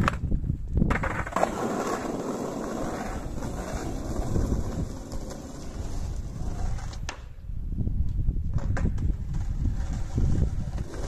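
Skateboard ollie on asphalt: a sharp pop of the tail, a brief gap while the board is in the air, then the landing about a second in and the wheels rolling away over rough tarmac, fading as the board goes off. Wind rumbles on the microphone throughout.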